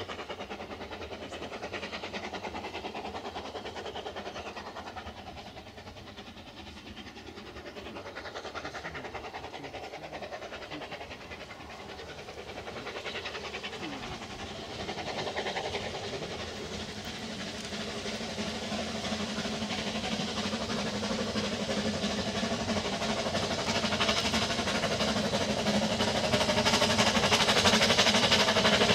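Narrow-gauge steam train running, growing steadily louder over the second half as it comes closer.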